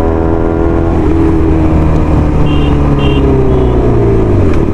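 Motorcycle engine running while riding, its pitch slowly falling as the bike eases off. A few short high beeps sound in the middle.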